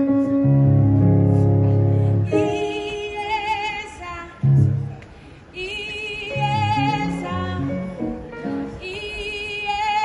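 Keyboard playing sustained chords over a deep bass, then women's voices singing high held notes with a wide vibrato, in phrases starting about three, five and a half, and nine seconds in.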